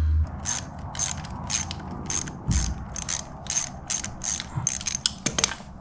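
Socket ratchet wrench undoing the 10 mm shift-lever bolt on a Honda CRF110, its pawl clicking in short strokes about three a second, stopping shortly before the end.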